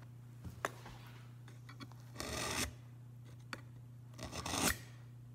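Two short rasping strokes of a hand tool across wood, about two seconds apart, among a few light knocks and clicks.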